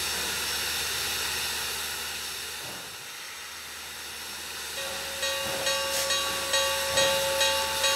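Steam locomotive 7470 hissing steam at a standstill; about five seconds in, its bell starts ringing, about two strokes a second.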